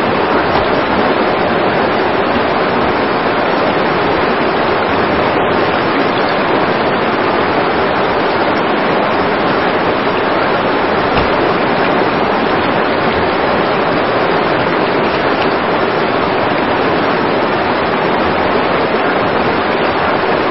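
Water rushing steadily where a spring flows out, a loud, even rush with no break.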